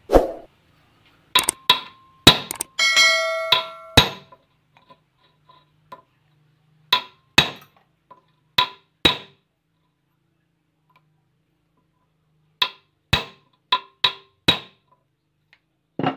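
A hammer striking a steel drift set in a steel sleeve held in a bench vise: about fifteen sharp metallic blows in bursts, some leaving a bell-like ring. The work is on a worn, loose car ball joint being rebuilt.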